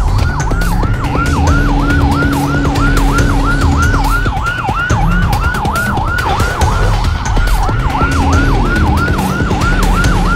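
Police siren on a fast yelp, wailing up and down about four times a second without a break, over the low sound of a running vehicle engine.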